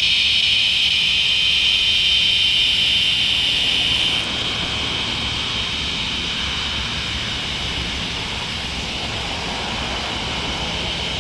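A chorus of many northern dusk singing cicadas (Tibicen auletes) buzzing together in a loud, steady, high drone. About four seconds in, the chorus drops a little in level and then carries on steadily.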